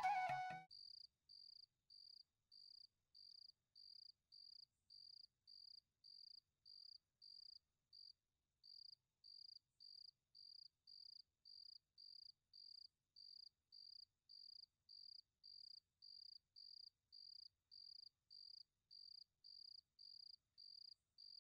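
Faint cricket chirping: short, evenly spaced high chirps, about one and a half a second.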